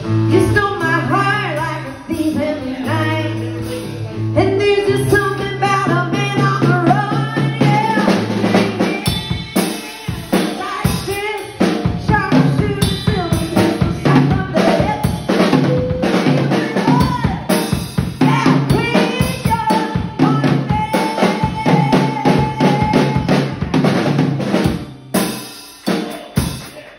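Live band playing out the end of a song: amplified acoustic-electric guitar with a drum kit keeping a steady beat. The music thins out near the end.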